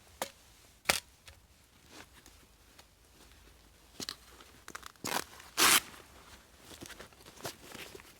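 Gear being handled on a bag: scattered small clicks and knocks, with one short, loud noisy rasp about five and a half seconds in.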